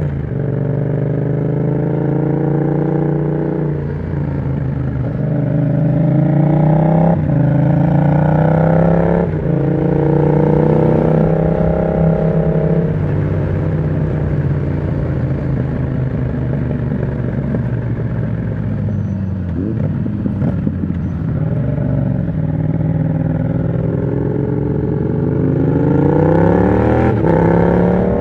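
Yamaha MT-07's parallel-twin engine through an aftermarket exhaust with the dB killer removed, accelerating hard through the gears with three quick upshifts, then easing off and running steadily before pulling up through the revs again near the end.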